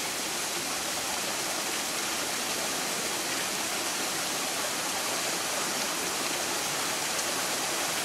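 Steady rush of running water from a shallow forest stream and the small travertine waterfall that feeds it.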